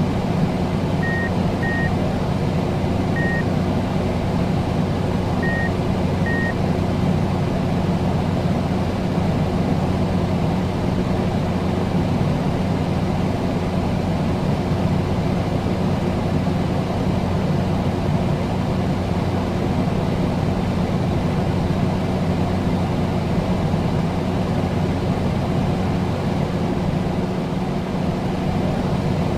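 Steady low droning hum over a dense rumbling noise, with five short high beeps of the same pitch in the first seven seconds.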